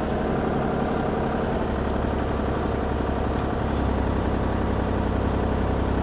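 Bobcat E35 compact excavator's diesel engine running steadily while the boom offset is worked from the joystick; a low hum grows a little stronger about halfway through.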